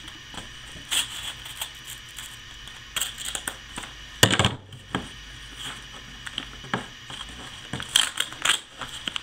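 Scissors snipping and scraping through a well-taped paper mail package, with paper rustling and handling noises in irregular short bursts. The loudest burst comes a little past four seconds in.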